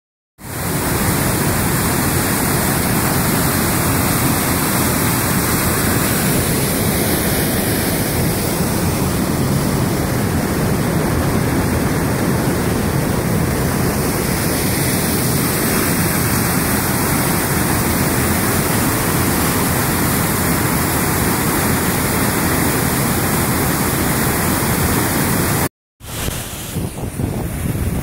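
Waterfall pouring onto rocks: a loud, steady rush of falling water, breaking off for a moment near the end and then coming back.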